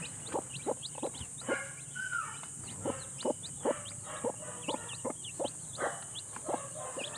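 Broody hen clucking in a steady run of short notes, about two to three a second, while newly hatched chicks peep in short high chirps beneath her.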